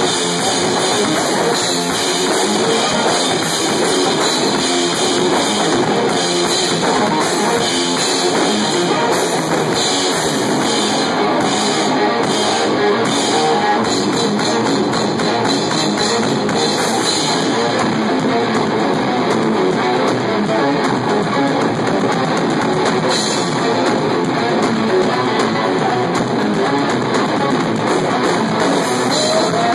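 Heavy rock played live by an electric guitar and a drum kit, loud and unbroken, recorded on a phone.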